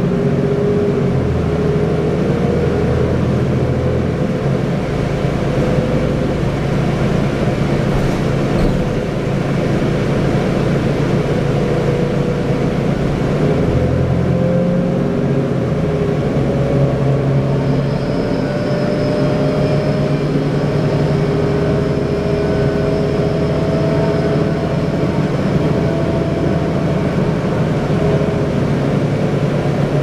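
Cummins ISL diesel engine and Allison B400R six-speed automatic transmission of a New Flyer D40LFR transit bus running under way, heard from inside the cabin. The running is steady and loud. Through the second half a whining tone climbs slowly in pitch.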